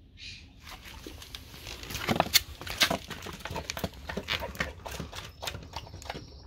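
A dog eating raw beef liver from a black plastic tray: quick wet chewing, smacking and licking, with the tray knocking on concrete. The clicks are loudest between about two and three seconds in.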